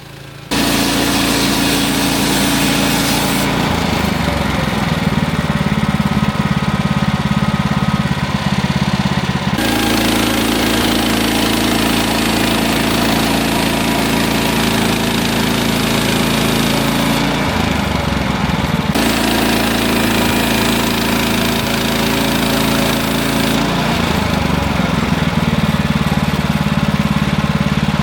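Gas engine of a Woodland Mills portable bandsaw sawmill running steadily as it saws a pine log. It comes in suddenly about half a second in, and its pitch steps down and back up a few times.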